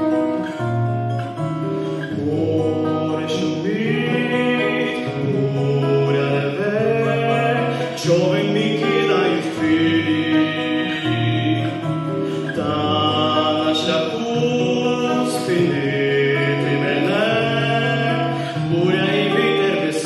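Men singing a slow gospel song into microphones, accompanied by guitar and held low instrumental notes.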